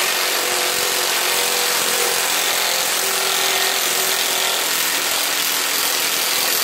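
Battery-powered Milwaukee 3/8-inch power tool running steadily under load with a whine. It is turning the forcing screw of a three-bolt harmonic balancer puller, drawing the balancer off its interference fit on a 305 small-block Chevy crankshaft.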